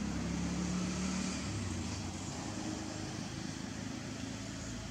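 Low hum of a motor vehicle engine running, its pitch dropping about a second and a half in.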